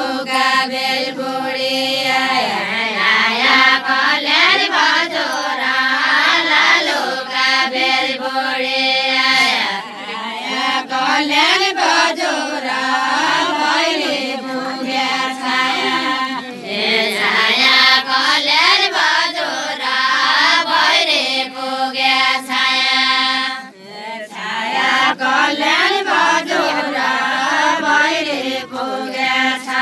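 A group of women singing a Deuda folk song together, a chant-like melody sung in unison in repeated phrases, with brief pauses between phrases about ten seconds in and again near the end.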